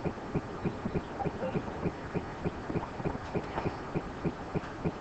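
Faint, regular ticking or pulsing, about three to four short beats a second, over a low steady hum.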